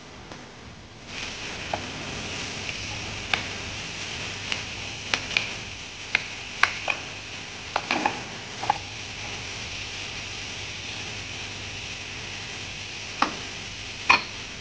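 Wooden spoon stirring cubed squash and carrots in a pot, knocking sharply against the pot about a dozen times in the first half and twice near the end, over a steady sizzling hiss of the vegetables frying that starts about a second in.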